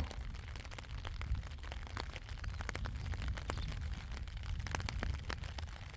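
Raindrops tapping irregularly on an umbrella, dozens of small ticks over a low rumble.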